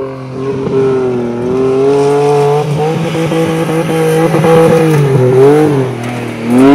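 Mitsubishi Pajero's 3.0 V6 engine working hard under load on a steep hill climb, its revs held fairly steady and creeping up. The revs sag about five and a half seconds in, then climb sharply into a loud rev near the end.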